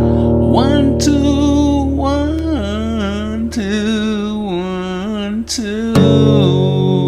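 Music: a voice holding long notes with vibrato, stepping between pitches, over guitar and steady low bass notes that change about six seconds in.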